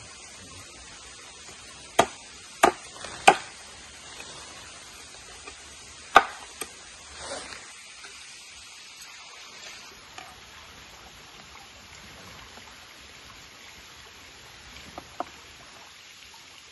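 Large knife chopping cooked rabbit on a wooden cutting board: four sharp chops in the first half, then a few lighter knocks of the blade on the board.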